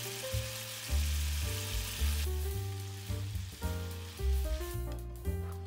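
Beef strips sizzling as they fry in oil in a frying pan, loudest for the first two seconds and then dying down, under background music with a low bass line.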